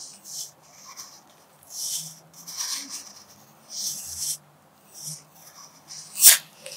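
Graphite pencil scratching across paper in separate writing strokes while cursive letters are formed, each stroke a short dry scratch. One brief, louder click near the end.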